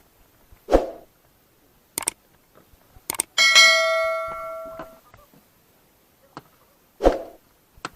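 A metal object is struck and rings once, near the middle, fading out over about a second and a half. Around it are a couple of dull thumps and a few sharp knocks.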